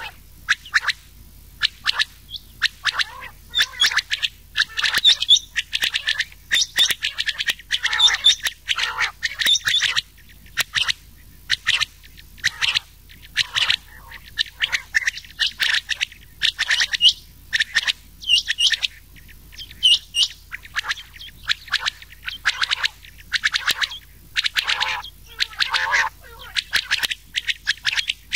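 Rain quail and common quail calling together, a dense run of short, sharp repeated calls, several a second. This is a quail call track used as a lure for hunting.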